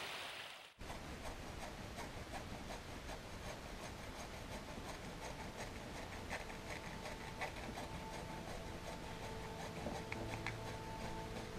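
Faint rustling with many small crackles and ticks. A few steady soft tones come in about ten seconds in, the start of background music.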